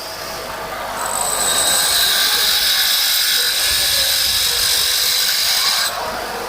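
HSS lathe tool bit being ground against a grinding wheel: a harsh, high grinding hiss starts about a second in and cuts off suddenly near the end, over the low hum of the grinder running.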